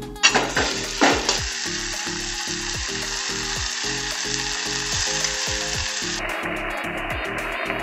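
Tomato and onion sizzling in a stainless steel pot over a gas flame for a sweet-and-sour sauce, with two sharp louder bursts in the first second; the sizzle thins about six seconds in. Background music with a steady beat plays under it.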